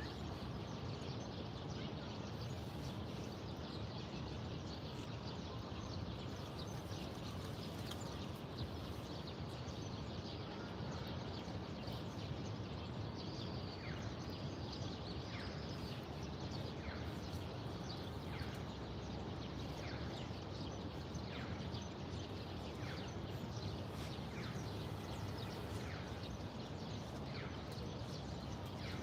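Steady low background hum of the surroundings, with a bird calling over it from about halfway through: a run of short, downward-sliding notes repeated roughly once a second.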